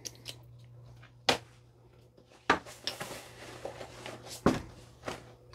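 Cordura fabric and nylon belt webbing of a waist pack rustling as it is put on around the waist, with a few sharp clicks and knocks from the strap and its plastic buckle, the loudest about four and a half seconds in.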